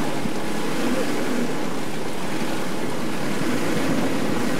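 Steady running noise of a small boat's motor under way, with water rushing past the hull.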